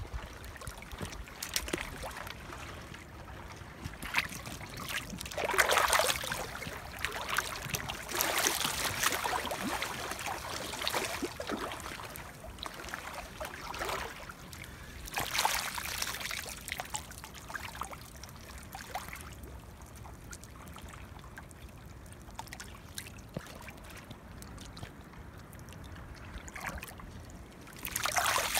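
Shallow stream water trickling, with several louder spells of splashing and sloshing, the last as a hand reaches into the water near the end.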